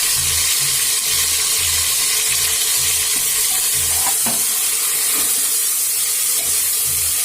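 Marinated chicken with tomatoes and green chillies sizzling in hot oil in a pressure cooker while being stirred and fried, a steady frying hiss with low, regular thuds about twice a second from the stirring.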